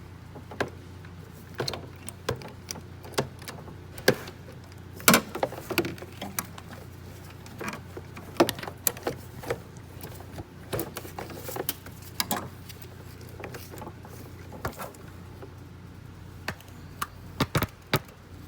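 Metal hand tools clicking and clanking at irregular intervals: a spark plug socket on extensions being fitted and worked with a wrench to loosen a spark plug.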